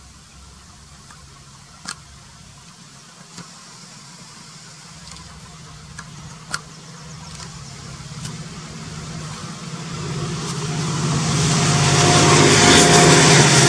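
Indian Railways EMD diesel locomotive hauling a passenger express toward the listener: a low engine drone that grows steadily louder over the last several seconds, joined by rising wheel-on-rail noise. Two short sharp clicks come earlier, about two seconds in and again about six and a half seconds in.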